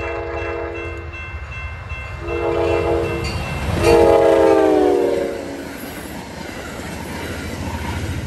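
Diesel locomotive air horn blowing a chord in three blasts: a long one ending about a second in, a short one, then the loudest, whose pitch drops as the train passes. A steady low rumble of the passing train runs underneath.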